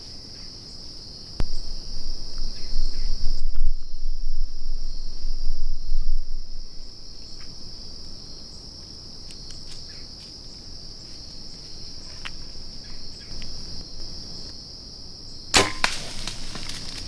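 Crickets chirping steadily. About a second and a half in, a click opens a few seconds of loud low rumbling handling noise near the microphone. Near the end comes a single sharp crack with a short ringing tail: a bow being shot and the arrow striking a whitetail deer.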